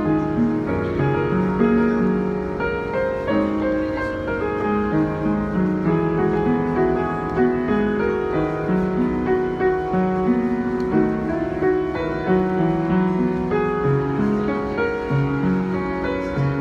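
Solo Yamaha piano playing a pop song arrangement: a melody over a moving accompaniment of sustained notes.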